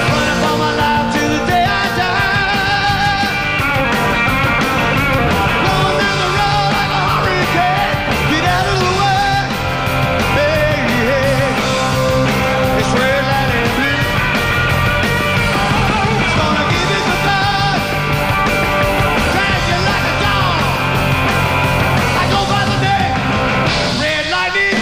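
A live rockabilly band playing an instrumental passage, with electric guitar over bass and drums.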